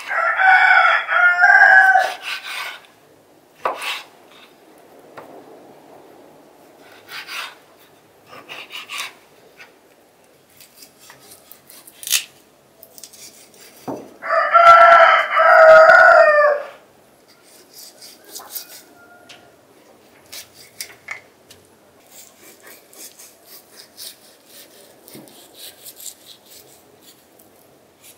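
A rooster crowing twice, once at the start and again about halfway through, each crow a long call of about two and a half seconds. Between the crows, faint taps and scrapes of a knife cutting raw lamb on a wooden board.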